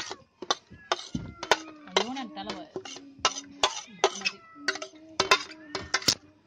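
Metal spoon scraping and tapping on a ceramic plate, pushing chopped vegetables off into a bowl: a run of irregular sharp clinks, two or three a second.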